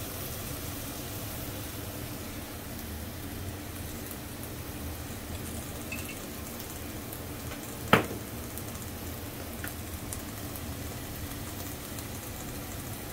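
Pumpkin and long beans frying in a wok, sizzling steadily, with one sharp knock about eight seconds in.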